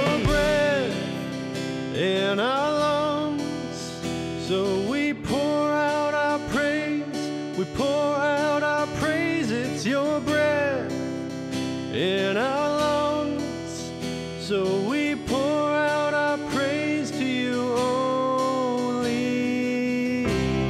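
Praise band playing a slow worship song: a sung melody over strummed acoustic guitar.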